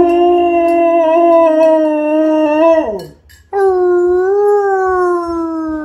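Siberian husky howling: one long, steady howl that drops in pitch and breaks off about three seconds in, then after a short pause a second long howl that rises and falls gently.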